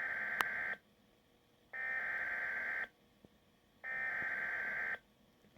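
SAME digital header bursts of a Weatheradio Canada emergency alert: a harsh, buzzy two-tone data warble about a second long, sent three times with about a second's pause between, the first already under way at the start. These coded bursts carry the alert's type and area ahead of the alarm tone and spoken bulletin.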